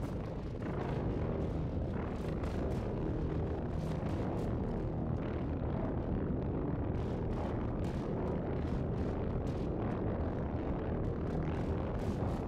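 Eurorack modular synthesizer playing a dense, dark noise drone: a steady low rumble with scattered crackles. The sound comes from a Pittsburgh Modular Game System run through a Make Noise Morphagene granular sampler and Mimeophon delay, with the Maths module being adjusted.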